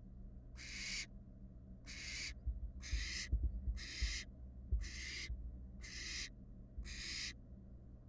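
Barn owl fledglings giving their rasping, hissing begging calls, about one a second. A few low thumps sound in the middle.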